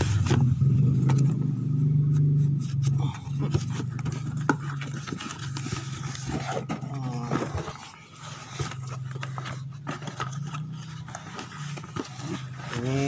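Hands handling and opening a cardboard box: scraping, tapping and rustling of cardboard with many small clicks, over a steady low hum.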